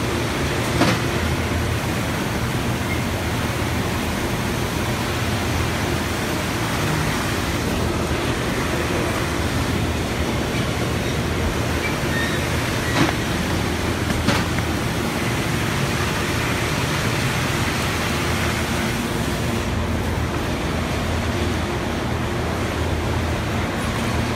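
Steady factory machinery din, a low hum under even noise, with three short sharp clicks: about a second in and twice around the middle.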